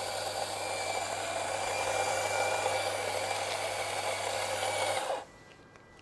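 Small domestic electric burr coffee grinder running a timed espresso grind into a portafilter: a steady motor hum with the rasp of beans going through the burrs. About five seconds in the timer ends the grind and the motor spins down and stops.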